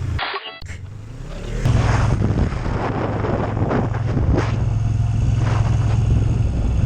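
Motorcycle running at a steady cruise, recorded on the rider's camera: a loud, even engine drone under a rush of wind noise. It starts abruptly at a cut about two seconds in, after a brief choppy stretch.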